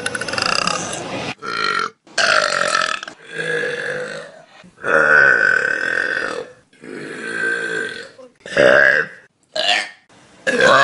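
A string of loud human burps, about nine in a row, cut one after another with short silent breaks between them. Some are short; one near the middle is long and drawn out, lasting nearly two seconds.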